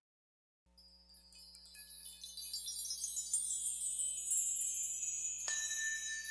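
Background music: after a brief silence a track opens with high tinkling wind chimes over a low steady drone, the shimmer sliding gradually lower. About five seconds in a single struck note rings on.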